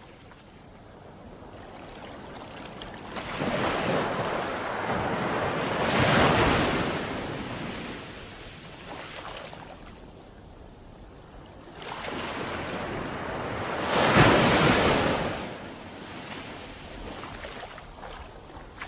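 Ocean waves breaking in steady surf. Two big waves swell and crash, one about a third of the way in and a louder one about three quarters through, each fading back to the quieter wash.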